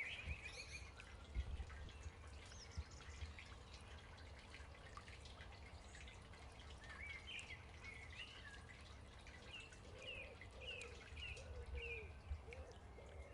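Songbirds calling over trickling water. Through the second half a bird repeats a short chirp about twice a second.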